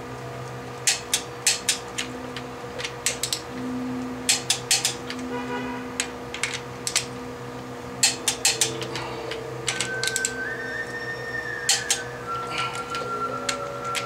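Hand ratchet clicking in short quick runs of a few clicks each, with pauses between, as the cylinder-head bolts are tightened down.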